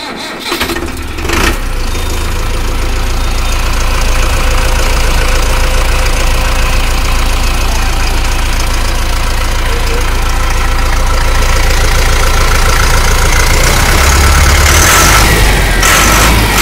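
Mahindra Arjun Novo tractor's common-rail diesel engine just after starting: it picks up over the first second or two, then idles steadily, getting a little louder near the end.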